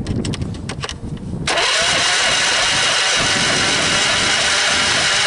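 A few clicks, then a Briggs & Stratton V-twin lawn tractor engine is cranked over by its electric starter for about four seconds without starting, a compression gauge fitted in one spark plug hole. It is a cranking compression test, and this cylinder reads 100 psi.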